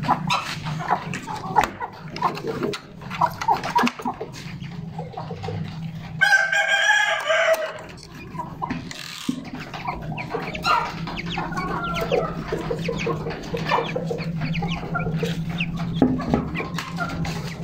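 Chickens clucking and chicks cheeping, many short calls, with one long, louder call about six seconds in, over a steady low hum.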